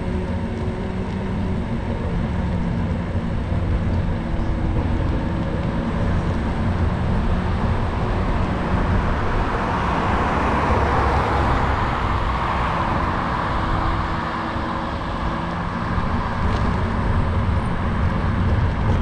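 Steady riding noise from a moving scooter or bike: wind rumbling on the microphone and wheels on the road, with faint steady hum. A car passes about ten seconds in, swelling and then fading.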